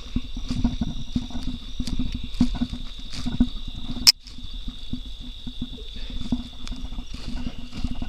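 A dead hog being dragged by hand through dry grass, with footsteps: a continuous crackling rustle and a single sharp knock about four seconds in. A steady high insect trill runs underneath.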